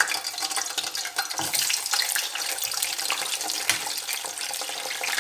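Pieces of meat frying in hot oil in a pan, with a dense steady sizzle and many small spitting crackles.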